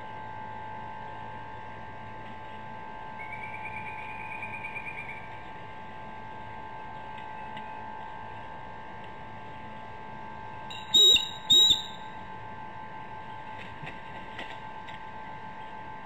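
Two loud, high-pitched bald eagle calls about half a second apart, two-thirds of the way through, after a softer trilling call earlier, over a steady electrical hum.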